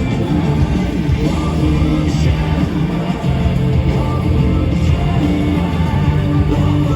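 Live rock band playing loudly, with guitars prominent.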